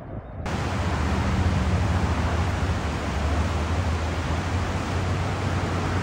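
Steady, loud roar of a waterfall's rushing water, an even hiss over a deep low rumble. It starts abruptly about half a second in, after a quieter, duller stretch.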